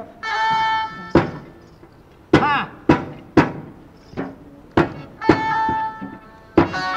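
Folk background music: a held melody on a sustained melodic instrument, broken by sharp, unevenly spaced drum strokes, about seven in all.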